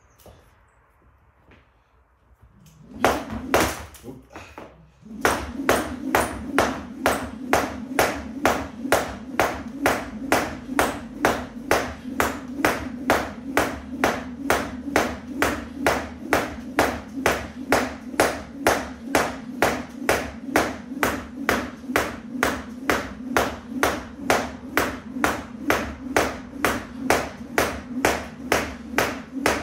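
Skipping rope in alternate-foot jumps: the rope and feet strike a floor mat in an even rhythm of about two strikes a second. The rhythm starts a few seconds in, after a couple of trial strikes and a short pause.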